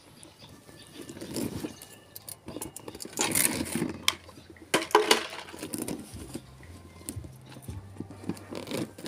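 Hands rummaging in a nylon mesh fish net inside a perforated plastic fish container, with rustling, light knocks and clicks. A plastic bag crinkles loudly about three and five seconds in.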